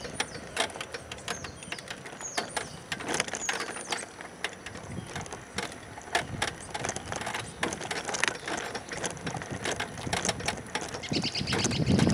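Wheelchair rolling over a cracked concrete sidewalk: irregular clicks and knocks as the wheels and the mounted camera rattle over the slab joints and cracks. Wind gusts on the microphone near the end.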